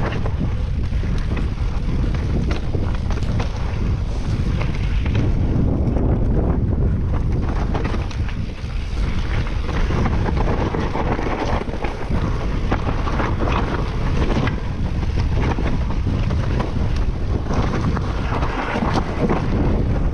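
Wind rushing over the microphone and the rumble and rattle of a mountain bike riding a rough trail, with frequent small knocks and clatters.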